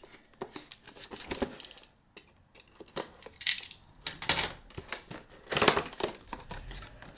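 A miniatures booster box and its packaging being opened and handled: an irregular run of clicks, taps and rustles, with a louder clatter of handling twice in the second half.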